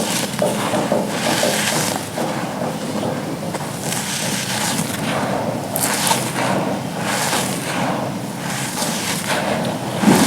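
Dry charcoal chunks being crumbled and crushed, a continuous gritty crunching with sharper cracks at irregular moments and a louder thud near the end.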